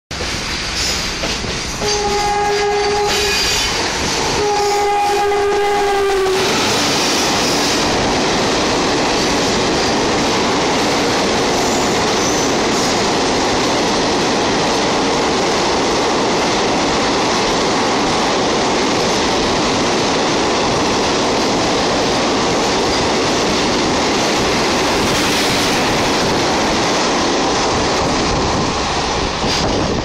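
Electric locomotive horn (WAP-4E) sounds two blasts, the second a little longer, as a greeting from the crew. An express train then runs through the station at speed, its wheels clattering over the rail joints in a loud steady rush of passing coaches that eases off near the end.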